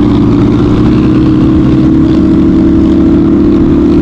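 Suzuki RM250 two-stroke dirt bike engine running at a steady pitch while riding, over an uneven wind rumble on the microphone.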